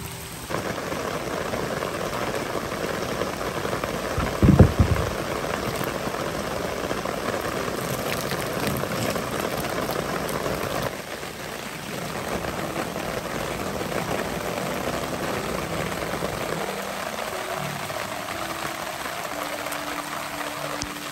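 Heavy rain falling steadily onto a wet wooden deck and the surrounding forest, with one loud low thump about four and a half seconds in. Background music with steady tones comes in near the end.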